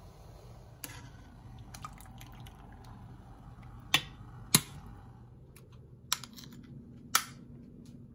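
A handful of sharp metallic clinks as a metal slotted spoon and a knife knock against a stainless steel pot and a ceramic plate while boiled tomatoes are lifted out and peeled, over a low steady hum.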